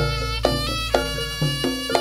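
Live Javanese barong (jaranan) ensemble music through a sound system: quick struck pitched notes over a steady low bass, with a held high melody line above.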